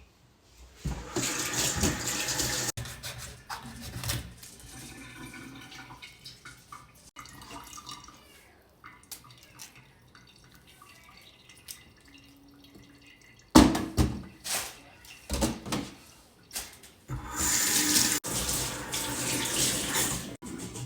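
Kitchen sink tap running with water splashing into the sink, on and off: a stretch about a second in, a choppier stretch later on, and a longer run near the end, with small clatter between.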